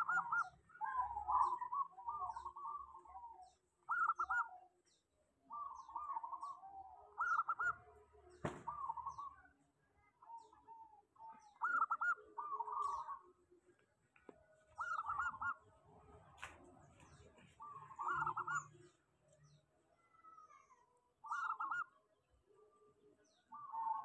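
Zebra doves (perkutut) cooing: short trilled phrases repeated every couple of seconds, the birds singing freely (ngelos), which keepers take as a sign that a dove has settled. Faint high chirps and a couple of sharp clicks sound between the phrases.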